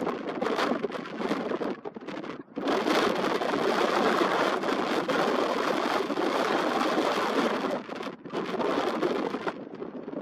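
Wind buffeting the Nikon Coolpix P1000's built-in microphone in strong, gusty rushes. It drops away briefly about two and a half seconds in and again near eight seconds.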